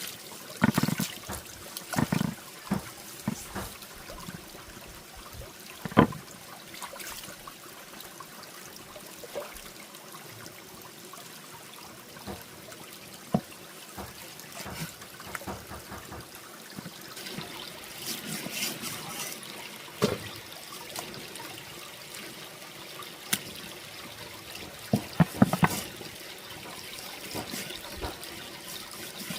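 Water trickling and splashing steadily, with scattered sharp knocks now and then.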